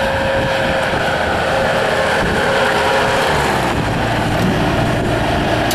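Bobcat S300 skid steer loader's diesel engine running steadily under operation, its note shifting about three and a half seconds in.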